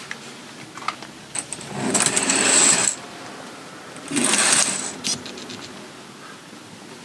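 A curtain being drawn along its track across the over-cab bunk of a motorhome, two rattly sliding swishes about two seconds apart, with a few small clicks around them.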